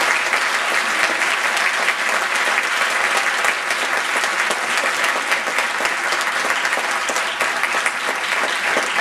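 An audience applauding steadily: many hands clapping together.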